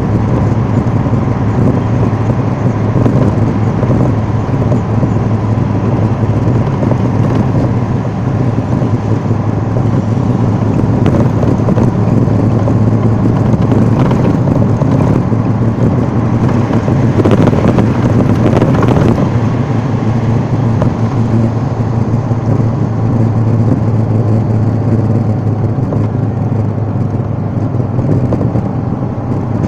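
Steady low engine drone and road noise heard from inside the cabin of a moving vehicle, with a few faint clatters in the middle.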